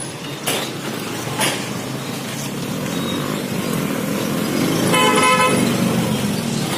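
Motorcycles and scooters running past in a narrow street, their engine noise growing louder toward the end, with a vehicle horn tooting once, briefly, about five seconds in. A few sharp knocks sound in the first second and a half.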